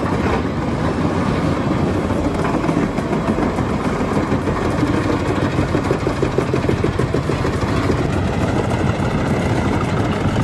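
Albach Diamant 2000 wood chipper, a 790-horsepower machine, running steadily with a dense, heavy mechanical din. A rapid rhythmic clatter rises out of it for a couple of seconds in the middle.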